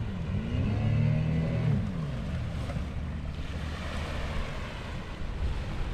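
Small outboard motor on an aluminium tinny, its revs dipping and climbing back, then throttled down and fading out about two seconds in as the boat runs up onto the beach. Small waves then wash up onto the sand.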